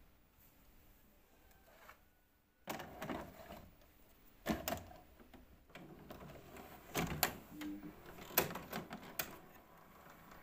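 A VHS cassette being handled out of its case and pushed into a Nobel VHS video cassette recorder's front slot, followed by several sharp clicks and clunks as the deck's loading mechanism draws the tape in and starts playing.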